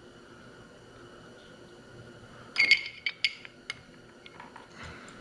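Small hard clicks and a short clatter of plastic and metal parts as a motorcycle handlebar switch housing is fitted back together by hand. There is a sharp cluster of clicks about halfway through, then a few lighter single clicks.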